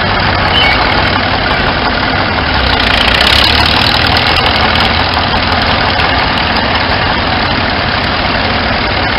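Vintage tractor engines idling and running, a small crawler tractor's engine among them, steady and a little louder for a moment about three seconds in.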